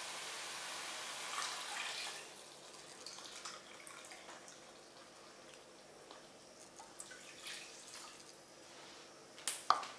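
Boiling water poured from a plastic measuring jug into a steel pot of browned mutton and onions: a steady splashing pour, loudest for the first two seconds, then fainter with small drips and ticks. Two sharp knocks near the end.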